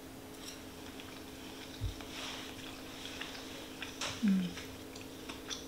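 Quiet chewing of a mouthful of fried rice, with faint mouth clicks and a short falling "mm" hum just after four seconds in, the sound of someone enjoying the taste. A low thump comes a little under two seconds in, over a steady faint hum.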